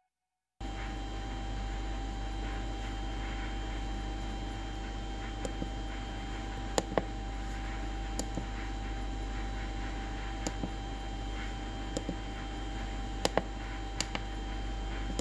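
Steady electrical hum and hiss with a faint steady whine, starting about half a second in, overlaid by a dozen or so irregular sharp clicks. The clicks are keys being pressed on an RZNC-0501 handheld CNC controller to step through its menus.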